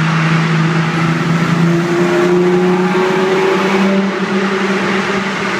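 Ford Mustang's engine and exhaust heard from inside the cabin while driving through a tunnel, the engine note climbing under acceleration for a couple of seconds and then settling, over loud road noise echoing off the tunnel walls.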